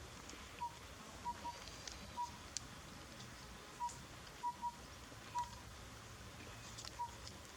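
Collared owlet singing: short whistled hoots on one pitch in a four-note phrase, a single note, a quick pair, then a single note. The phrase repeats about every three seconds, twice in full, and a third begins near the end.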